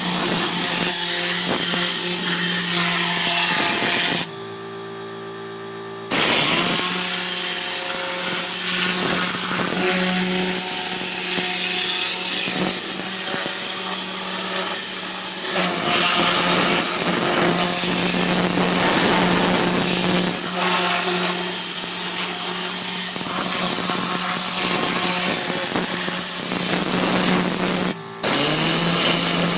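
Matador air-powered cleaning gun spraying compressed air and cleaning solution, a loud steady hiss. It cuts off about four seconds in for two seconds and again for a moment near the end, while a steady low hum carries on underneath.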